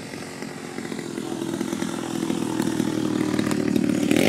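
Single-cylinder two-stroke gas engine (DLE 55cc) of a giant-scale RC aerobatic plane buzzing at high revs, growing steadily louder as the plane comes in on a low pass.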